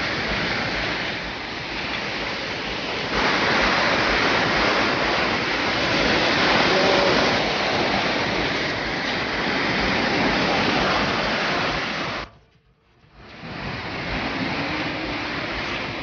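Steady rush of water from the Harbiye waterfall cascades. It cuts out to near silence for about a second around twelve seconds in, then returns.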